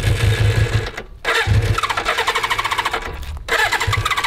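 Motorcycle engine being cranked over without catching, in repeated tries broken by short pauses about a second in and about three seconds in. It fails to start, and a closed fuel tap is suspected.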